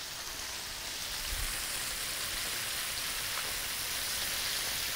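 Flour-coated chicken pieces frying in hot shortening in an electric skillet: a steady sizzle that grows a little louder over the first couple of seconds and then holds.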